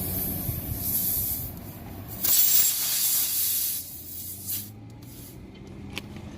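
Air hissing out of a punctured car tyre as a plug insertion tool is forced into the hole, in two bursts: a short one about a second in and a louder, longer one just after two seconds.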